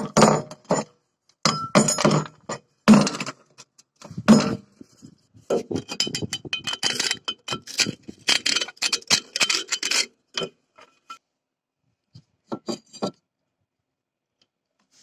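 Metallic clinks and knocks from a handheld cast-iron brake disc, then several seconds of a screwdriver scraping and rattling against its rusty hub face. A few light clinks near the end.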